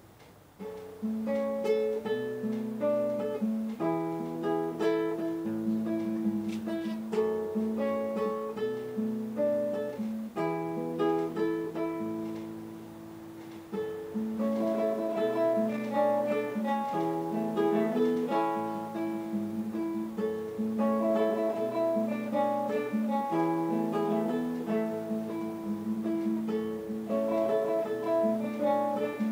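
Two steel-string acoustic guitars playing an instrumental duet of plucked, picked notes. The playing starts about a second in, eases into a softer passage around twelve seconds in, and comes back fuller about two seconds later.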